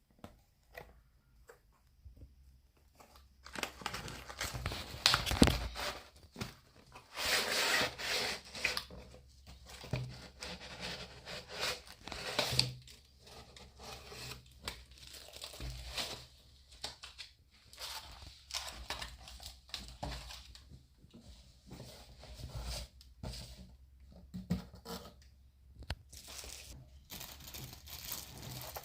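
Packaging being torn open and crinkled by hand: irregular tearing and rustling that starts about three seconds in and goes on in uneven bursts.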